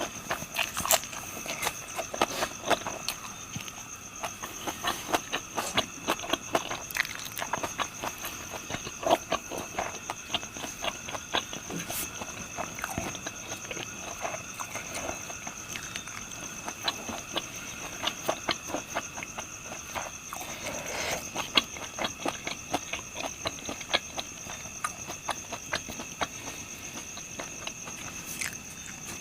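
Close-up eating sounds: irregular crunching, clicking and smacking as fried pork intestines and fried liver are chewed, over a steady high-pitched drone.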